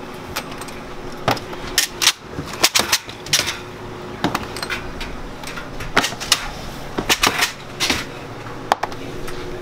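Irregular sharp clicks and clacks of hard candy and metal parts being handled at an antique candy-chopping machine, over a steady low hum.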